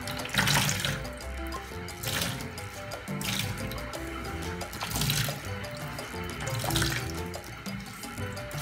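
Coconut milk splashing into a plastic basin in short spurts, about five times, as grated coconut is squeezed by hand, over background music.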